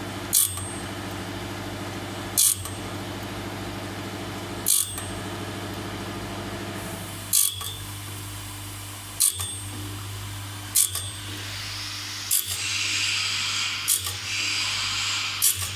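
Automatic band saw blade sharpener running: a steady motor hum with a sharp metallic click about every two seconds as the machine cycles. A hiss joins about twelve seconds in.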